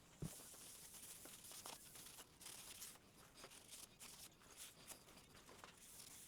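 Faint rubbing and scratching of a cloth wiping a cast-iron jointer table clean with mineral spirits, with a soft knock just after the start.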